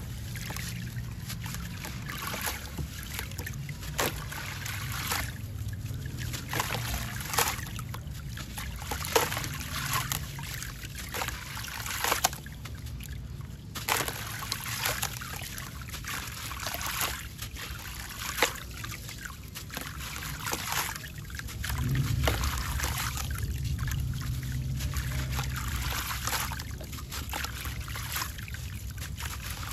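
Gritty sand-cement chunk crumbling in wet hands over a tub of water: sand grains and crumbs trickle and patter into the water, with scattered sharp crunches and small splashes. A low rumble joins about two-thirds of the way in and lasts several seconds.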